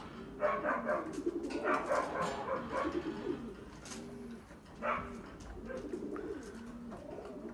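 Pigeons cooing over and over in a steady run of low, arched calls. Over them come louder bursts of higher cries and scuffling from Doberman puppies at play: about half a second to two and a half seconds in, and again near five seconds.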